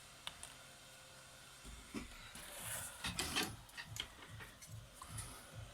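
Faint, scattered clicks, taps and scrapes of pliers handling a TV's LED backlight strip, busiest around the middle.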